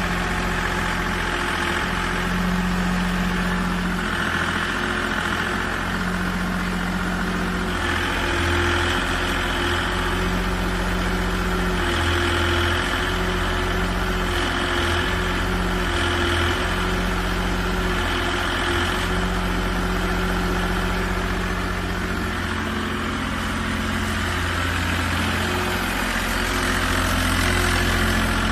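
Three-cylinder diesel engine of a two-tonne mini excavator running steadily, its sound shifting in short spells every second or two.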